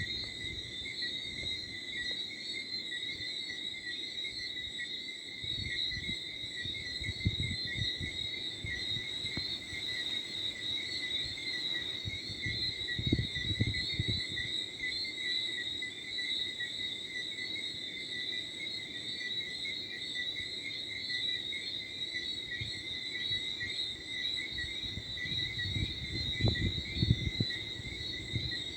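Steady night chorus of crickets and frogs, a dense unbroken high trilling. Light wind buffets the microphone with a low rumble a few times, most strongly about halfway through and near the end.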